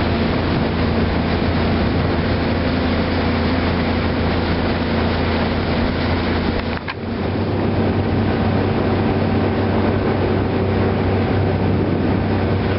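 Small motorboat's engine running steadily under way, a low hum over the rush of wind and water. About seven seconds in, it briefly dips, then carries on at a slightly higher pitch.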